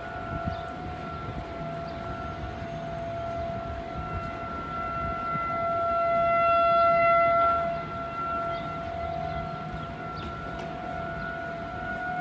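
Outdoor civil-defense warning siren sounding a steady tone from a distance. It swells to its loudest about six to seven seconds in, then falls back.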